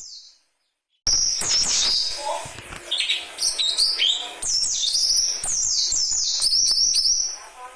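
Birds calling loudly: a dense run of high, rapid chirps and whistles that starts abruptly about a second in and dies down near the end.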